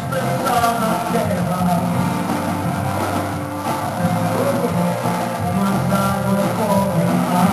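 Revival worship music: a band led by guitar, with a singing voice.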